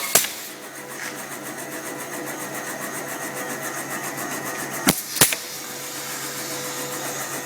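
Drilling-slotting machine's electric motor running steadily with no load, a constant hum, just after a heavy cutting sound cuts off. Two short knocks a fraction of a second apart come about five seconds in.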